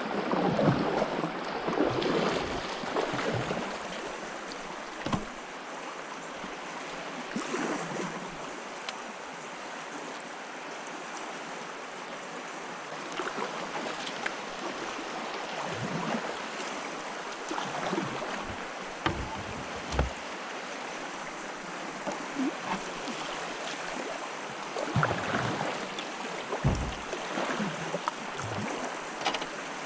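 River current rushing steadily, with scattered knocks and a few low thumps, loudest around twenty seconds in and again near the end.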